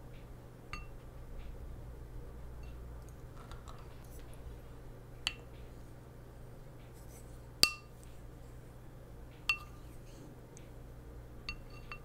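A wooden spoon clinking against a glazed ceramic plate about five times while scooping custard pudding, each clink a sharp tap with a brief ringing tone. The loudest comes about seven and a half seconds in. A low steady hum sits underneath.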